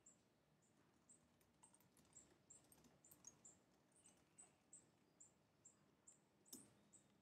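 Faint computer-keyboard typing: a string of light key clicks at a few per second, with one louder click about six and a half seconds in.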